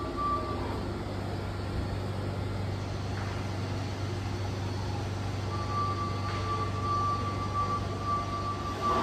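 Steady low hum of machine-shop ambience, with a thin high steady whine that drops out early and comes back about halfway through.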